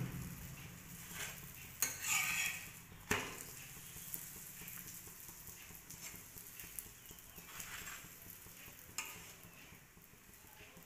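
A chapati roasting on a hot tava with a faint, steady sizzle, while a flat metal spatula presses and slides it against the pan, giving a few scrapes and taps, the sharpest about two to three seconds in.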